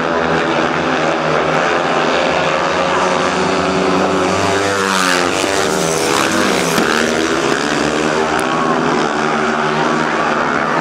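Speedway motorcycles racing, several 500cc single-cylinder methanol-fuelled engines at high revs. About halfway through the bikes pass close, their pitch sweeping as they go by.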